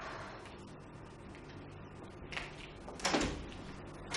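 Two short thuds about three-quarters of a second apart, the second louder, over a faint steady hum.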